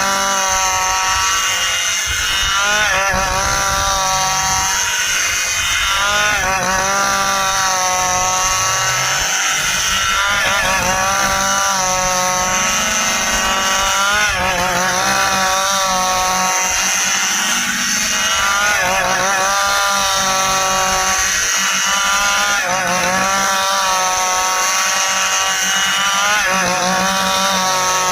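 Stihl chainsaw running at high revs while cutting through dense dry ipê wood. Its engine note rises and sags about every four seconds as the chain bites into the cut and eases off.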